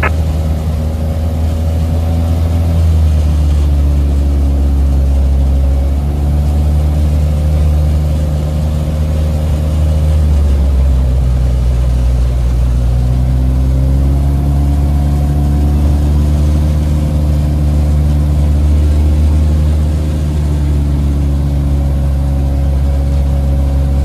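American Champion Decathlon's piston engine and propeller droning steadily inside the cockpit. Its pitch sinks about ten seconds in and climbs back a few seconds later as the power setting changes during the descent.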